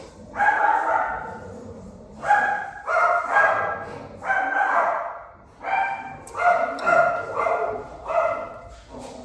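A dog barking repeatedly, about ten loud barks at uneven intervals, each trailing off.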